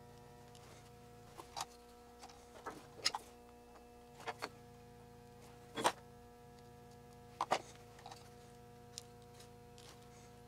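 Scattered small clicks and taps from hand work on a circuit board held in a metal PCB vise while soldering, the sharpest about three and six seconds in, over a steady faint hum.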